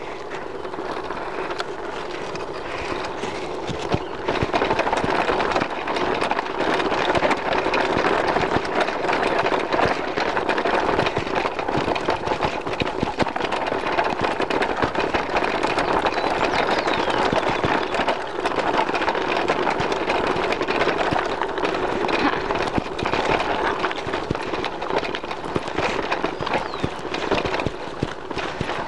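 Mountain bike rattling and clattering as it rolls over a rough concrete and cobblestone lane, a dense run of small knocks, louder from about four seconds in.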